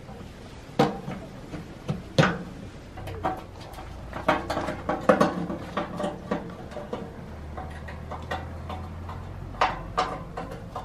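Screwdriver work on a sheet-steel wood stove: irregular metallic clicks, taps and knocks as screws are driven and steel parts and the flue pipe are fitted together.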